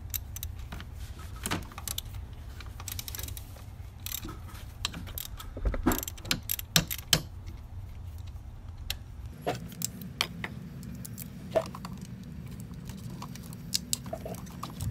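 Hand ratchet and socket working a bolt loose: irregular metal clicks and clinks of the ratchet and tools, some in quick clusters. A low steady hum comes in about two-thirds of the way through.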